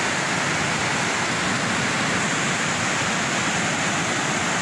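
Steady, even rush of fast-flowing floodwater.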